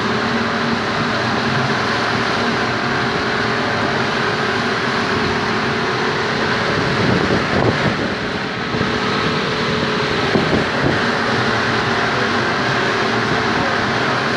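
Yamaha outboard motor running steadily at speed, with water rushing and churning in the wake behind the boat.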